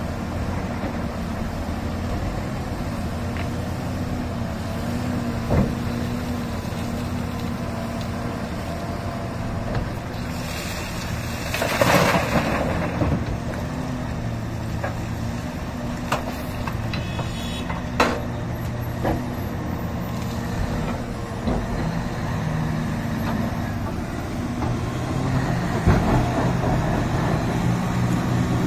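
Heavy diesel engines of a Komatsu PC1250 mining excavator and a Cat 773E haul truck running steadily. About halfway through there is a loud rush of broken rock pouring from the excavator bucket into the truck's steel dump body, and single stones knock against the body a few times.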